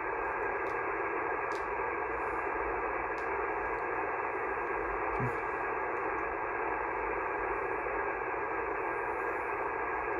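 Steady hiss of static from an HF amateur radio receiver on single sideband, narrow and thin like a radio speaker, with a couple of faint steady tones in it. The frequency is quiet between stations: no one is transmitting.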